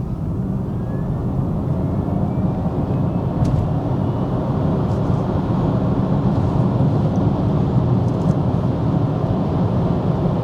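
Kia EV6 electric car under way: a faint electric motor whine rising in pitch during the first second or so, with steady road and tyre noise and a low rumble that builds with speed and then holds.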